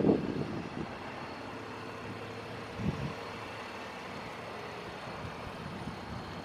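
Steady outdoor background noise, with a soft low bump at the start and another about three seconds in.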